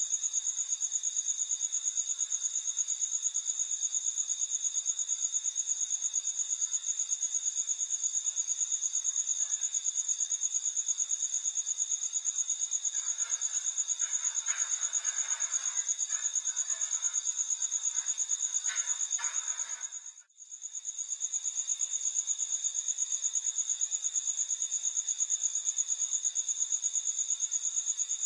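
Crickets trilling in a steady, high-pitched, fast-pulsing chorus that drops out for a moment about twenty seconds in.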